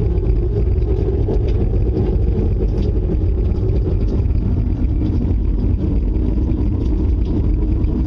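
Loud, steady low roar of storm wind.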